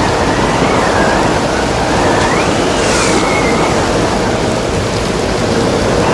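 Storm wind and waves: a steady rushing of surf, with a thin whistle of wind that rises and falls in pitch, and a brief high hiss about three seconds in.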